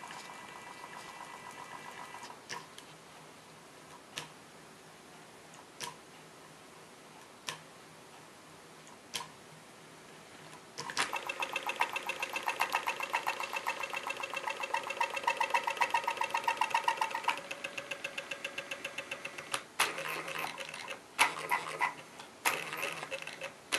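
Stepper motors on a CNC-converted Proxxon mini mill driving the axes through a homing cycle. A steady whine at first, then single clicks about every second and a half, then a loud, rapidly pulsing whine for about six seconds halfway through, and irregular stuttering bursts near the end.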